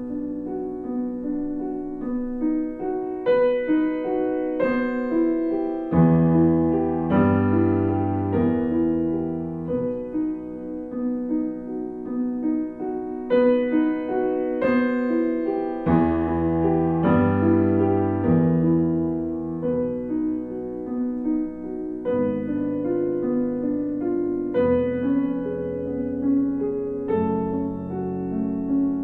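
Background piano music: slow, gentle chords and melody with changing bass notes.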